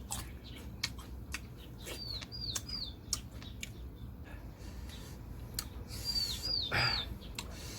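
A small bird chirping in quick runs of three hooked notes, twice, over sharp irregular clicks and crunches that fit someone chewing crisp bilimbi fruit.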